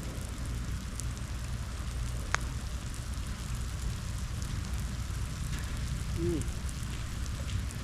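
Light rain pattering and crackling, with scattered drop ticks, over a steady low rumble. There is one sharp click about two and a half seconds in.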